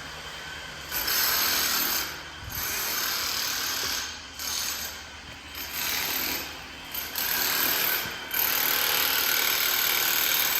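Power tool running in repeated bursts of half a second to two seconds, stopping and starting about seven times.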